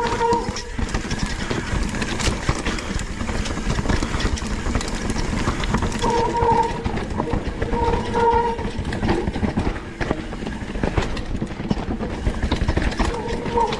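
Mountain bike descending a rough, wet trail: steady rumble and rattle of the tyres, chain and frame, with wind on the microphone. Short humming squeals from the wet disc brakes cut in several times as the rider brakes.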